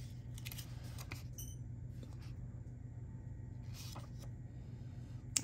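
Faint rustles and light taps of small paper pieces being sorted through by hand, a few at a time, over a steady low hum.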